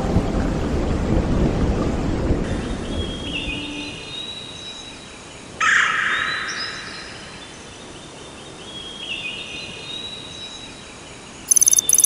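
Intro sound effects: a low rumble fading out over the first few seconds, with high chirps like birdsong. A sudden whoosh about halfway through fades away, and loud rapid electronic beeps start near the end.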